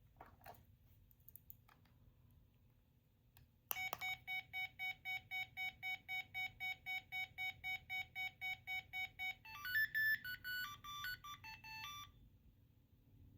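Small electronic sound-effect toy from a capsule-toy set: a button click, then a rapid electronic beep repeating about four to five times a second for roughly six seconds, followed by a short electronic jingle of changing notes.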